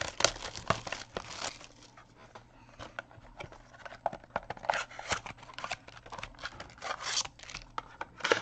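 Plastic wrapping on a sealed box of trading cards being torn open and crinkled, in irregular rustles and crackles with a quieter pause partway through.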